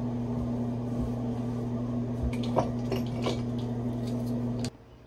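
Steady low electrical hum in a small bathroom, with a few light clicks of small items being handled on the counter about two and a half and three and a quarter seconds in; the hum cuts off suddenly near the end.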